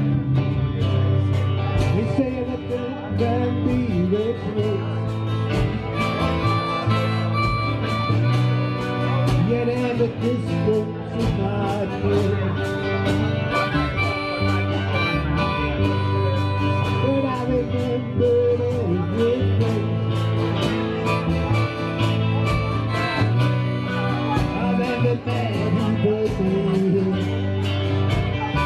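Live blues band playing: a harmonica played into a microphone leads with bending notes over electric guitars and bass guitar, with a steady beat.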